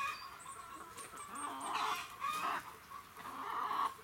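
Domestic chickens clucking in a run, with irregular short calls and a few high, thin chirps about a second in.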